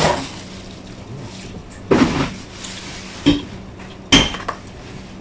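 Dishes and utensils clattering at a meal table: three separate knocks and clinks, about two, three and four seconds in, the last one with a short ring.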